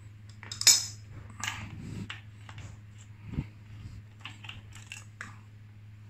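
Steel cassette tools clinking and rattling against a Shimano XT 11-speed cassette as a chain whip holds the sprockets and the lockring tool is worked by hand to loosen the lockring. A sharp clink a little under a second in is the loudest, then scattered lighter clinks and a duller knock around the middle, over a steady low hum.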